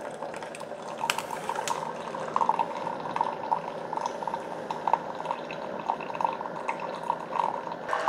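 Keurig K-Iced Essentials single-serve coffee maker brewing: a thin stream of hot coffee running from the spout into a partly filled glass mug, a steady trickling pour.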